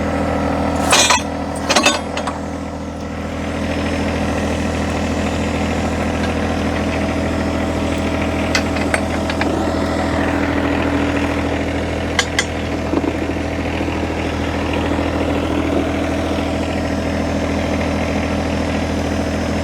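John Deere 1025R compact tractor's three-cylinder diesel running steadily while the backhoe digs. Two loud sharp clanks come about a second apart near the start, and a few lighter knocks follow later.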